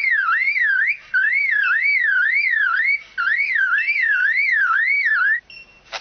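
Superb lyrebird mimicking a car alarm: a warbling siren-like tone that sweeps up and down about three times a second, in three runs broken by short pauses. It stops about five and a half seconds in.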